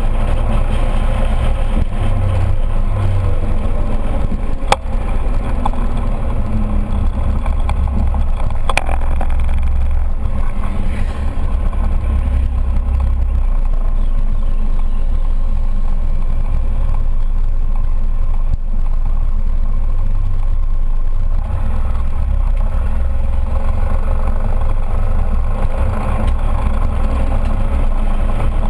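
Scooter riding at road speed: a steady low rumble of wind on the microphone mixed with the scooter's engine. A sharp click comes about five seconds in and another near nine seconds.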